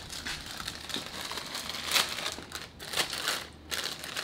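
Plastic chip bag crinkling as it is handled and pulled open, with two sharper crackles about two and three seconds in.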